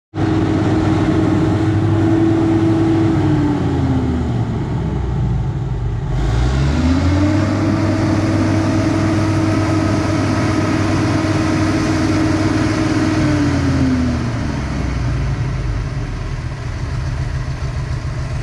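Mercedes army truck's diesel engine revving and holding high while the truck, stuck, strains to pull a tank on its trailer. The revs drop about three seconds in, climb again a few seconds later, hold, and fall back near fourteen seconds, then the engine runs on lower.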